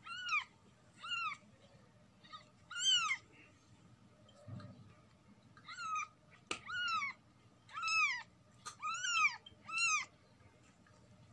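Newborn kitten mewing: about ten short, high mews, each rising and falling in pitch, with a pause of a couple of seconds in the middle. A single sharp click comes a little past halfway.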